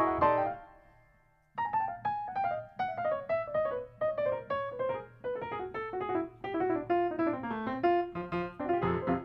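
Solo piano music: a chord rings out and dies away, then after a short pause a quick line of single notes moves down and back up, several notes a second.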